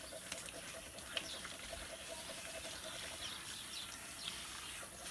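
Water running from a handheld hose sprayer onto a dog in a wash tub, as a steady hiss, with faint bird chirps now and then.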